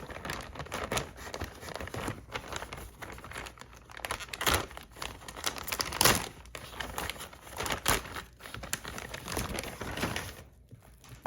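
Packaging being opened by hand: continuous crinkling and rustling, with a few sharper, louder crackles about four and a half, six and eight seconds in.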